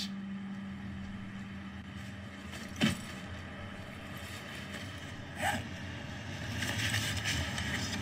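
Low steady rumble of a car running, with two short sounds about three and five and a half seconds in and a hiss rising near the end.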